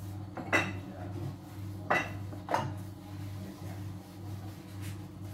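Dishes or cutlery clinking: three sharp, ringing clinks, one about half a second in and two close together around two seconds in, over a steady low hum.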